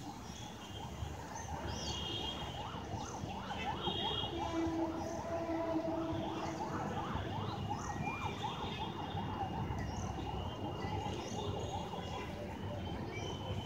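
A distant siren yelping, a quick rising-and-falling wail repeated over and over, above a steady rumble of city traffic. A horn sounds one held note for a couple of seconds about four seconds in.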